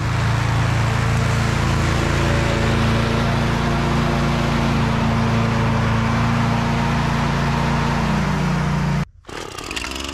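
Husqvarna V554 stand-on mower running steadily as it mows close by. Its pitch dips slightly near the end before the sound cuts off abruptly.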